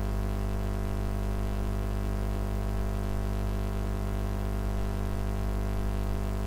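Steady electrical mains hum with many overtones, unchanging in pitch and level.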